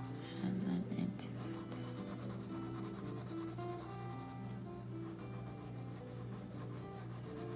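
Colored pencil scratching on paper in quick back-and-forth shading strokes, pressed hard to lay down dark color, with a brief pause about halfway. Soft guitar music plays underneath.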